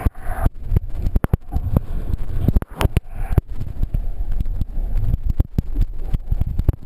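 Whitewater rapids rushing and splashing over a kayak's deck, heard through an action camera at the waterline: a constant low rumble of water and microphone buffeting, broken by frequent sharp knocks and splashes as water strikes the camera housing.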